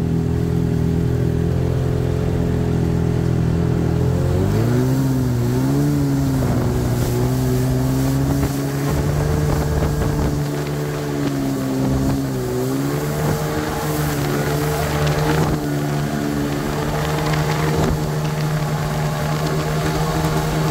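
Jet ski engine running under way. Its pitch shifts about four seconds in, then dips and rises a few times as the throttle changes.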